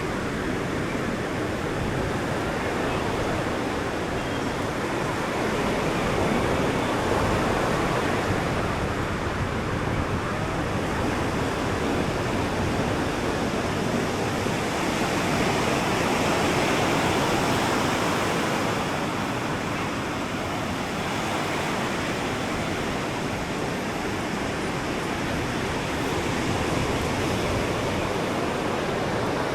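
Ocean surf breaking and washing up a sandy beach: a continuous rush that swells a little twice, about six seconds in and again just past the middle.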